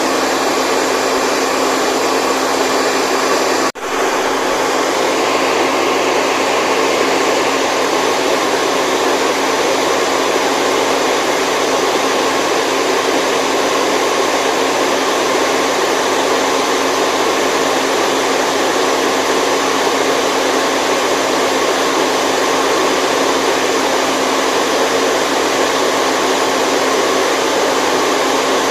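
Steady white noise for lulling a baby to sleep: an even, machine-like whoosh with a faint steady hum in it. It drops out for a split second about four seconds in.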